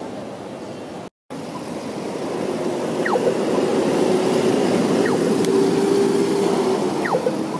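Road traffic passing, building to a box truck's engine going by close, loudest about six seconds in. Three short falling whistles, about two seconds apart, sound over it.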